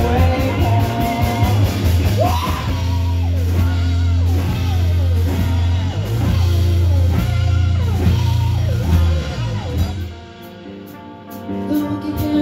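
Live rock band with electric guitars playing, over a heavy low bass and repeated falling, sliding notes. The music drops away briefly about ten seconds in, then the guitars come back in.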